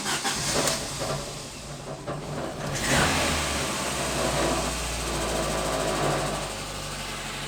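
Lada Kalina engine being started: the starter turns it over, it catches about three seconds in with a burst of revs, then settles into a steady idle. It starts sluggishly, which the mechanic calls "rather sad".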